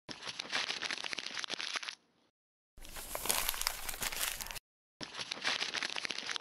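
Paper being crumpled and crinkled: three bursts of dense crackling of about two seconds each, the first two cut off abruptly.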